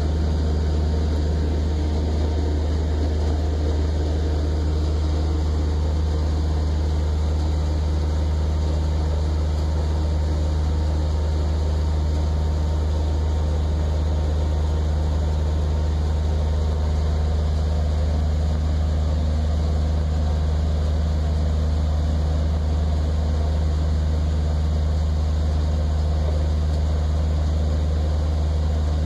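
Engine of a 1959 26-foot steel trawler running steadily under way: a constant deep hum, with the wash of the boat's wake over it.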